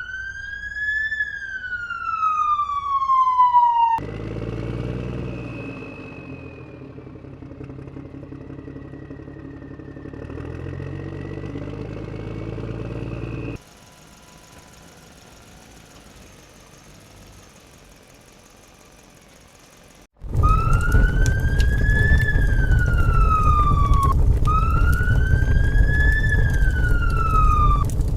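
A wailing siren, its pitch rising and then falling slowly, cuts off about four seconds in. A low rumble follows and drops to a faint hum at about fourteen seconds. At about twenty seconds the siren comes back, wailing up and down about every four seconds over a loud steady rumble.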